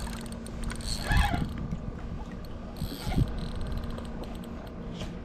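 Hooked fish being fought on a spinning reel from a kayak: low rumble and reel noise, broken by two short noisy bursts about one second and three seconds in.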